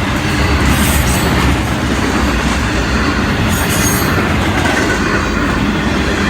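Intermodal freight train rolling past: a loud, steady rumble of steel wheels on rail, with brief high-pitched wheel squeals about a second in and again near four seconds.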